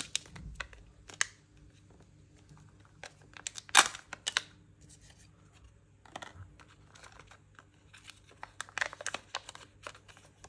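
Foil-and-paper seal being peeled off a Kinder Joy plastic egg half, with crinkling and tearing in short irregular crackles, the loudest about four seconds in and a busy cluster near the end.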